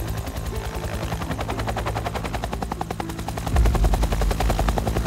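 Bell Huey-type helicopter with its two-bladed main rotor turning close by: a fast, even chop of blade beats over a low engine rumble. The rumble grows louder about three and a half seconds in.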